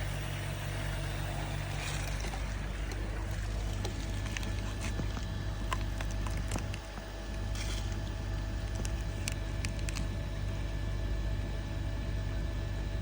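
Steady hum of a koi pond's running pump and filter system, with a few light clicks and knocks scattered through.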